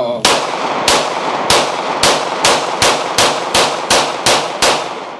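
A Glock 23 Gen 5 .40-calibre pistol firing about eleven shots in a rapid string, speeding up from roughly one every 0.6 s to nearly three a second, each shot ringing with reverberation.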